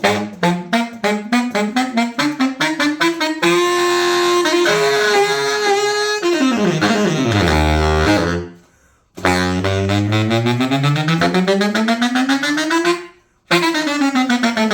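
Baritone saxophone being play-tested after a repair: quick tongued notes, a few held notes, then fast scale runs down into the low register and back up, with two short pauses for breath.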